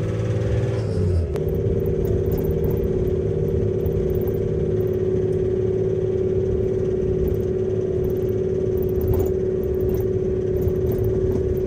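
Van engine and road noise heard from inside the cab while driving, a steady hum holding one pitch over a low rumble.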